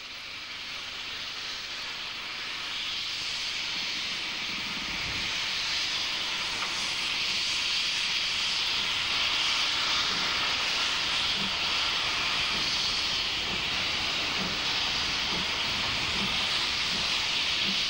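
DB class 23 steam locomotive letting off steam: a loud, steady hiss that swells over the first few seconds, with faint low beats in the second half coming closer together.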